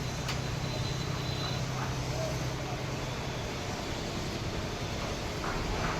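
Steady engine drone over a bed of outdoor background noise, with a faint click just after the start.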